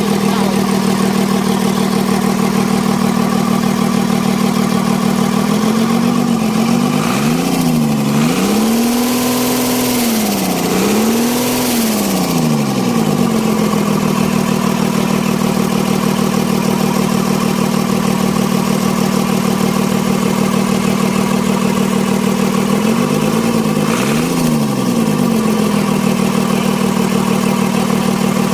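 Mitsubishi 6D17 diesel engine running steadily after its injection pump plungers were replaced to cure hard starting. It is revved up and back down several times between about six and thirteen seconds in, and once more a little past the middle.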